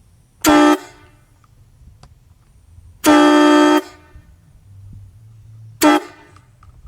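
Homemade hybrid PVC K5LA-style train horn, with a mix of plastic and thin aluminium diaphragms, blown on compressed air at 100 psi. It gives three blasts that start and stop abruptly: a short one about half a second in, a longer one of under a second about three seconds in, and a short one near the end.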